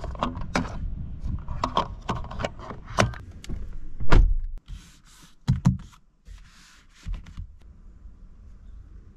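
Handling clicks and knocks, then a car door of the Mercedes C-Class Estate shutting with a solid thunk about four seconds in. Brief rustling and a couple of smaller knocks follow, then it goes quiet.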